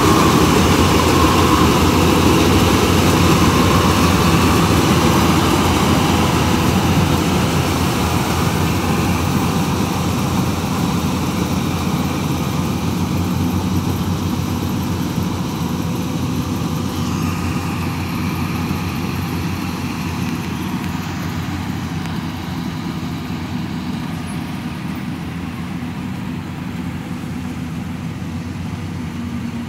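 Modified Yanmar 82 combine harvester's diesel engine and threshing machinery running steadily while cutting rice, growing gradually fainter as it moves away.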